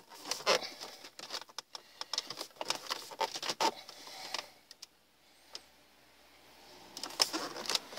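Light clicks and creaks of plastic dashboard trim being pressed down by hand, with a few seconds of near silence and one lone click around the middle before more clicking near the end.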